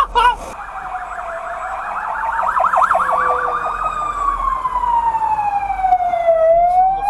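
Emergency vehicle siren wailing: one tone rises slowly over about three seconds, falls for about two and a half, and starts rising again near the end. For the first few seconds a second, fast yelping warble sounds with it.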